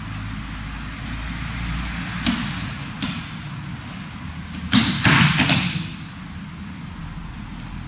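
A thrown aikido partner hitting a canvas-covered mat in a breakfall: a loud cluster of slaps and thuds about five seconds in. Two short, sharp knocks come a couple of seconds before it as the pair close in.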